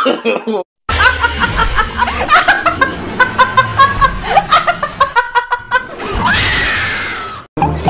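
Quick, repeated snickering laughter over music. About six seconds in comes a woman's scream of about a second, which cuts off sharply.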